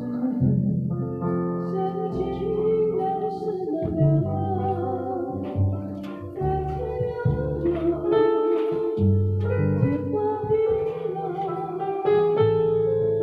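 A woman singing a Taiwanese Hokkien ballad into a handheld microphone over amplified backing music, with a trumpet playing along at the start.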